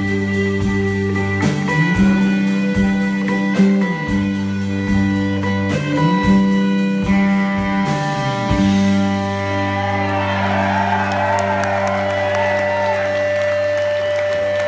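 Live rock band with electric guitar, bass guitar and drums playing a song's closing bars, the drums hitting about twice a second. About two-thirds of the way through the drums stop, a held guitar chord and bass note keep ringing, and the audience starts applauding and cheering.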